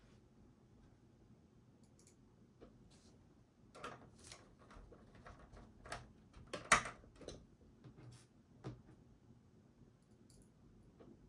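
Scattered small clicks and taps of plastic and metal computer parts being handled and fitted together while an all-in-one PC is reassembled, with the sharpest click about two-thirds of the way in.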